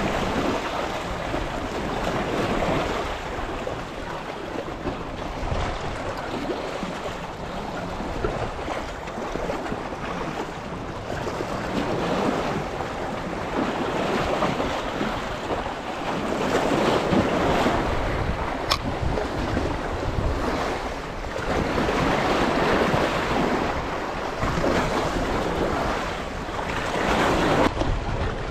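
Sea waves washing against a rocky shore, with wind buffeting the microphone; the rushing noise swells and eases every few seconds.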